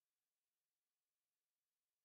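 Near silence: only a faint, even noise floor.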